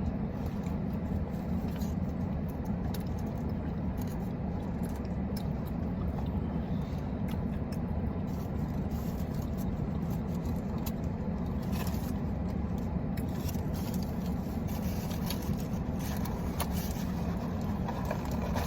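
Steady low hum of a parked car's engine idling, heard from inside the cabin, with faint scattered clicks and rustles over it.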